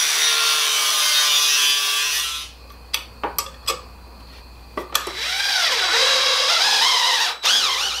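Angle grinder cutting through steel with a cut-off disc for about two and a half seconds, then stopping. A few sharp clicks and knocks follow, then a power tool's whine comes back, rising and falling in pitch as it works.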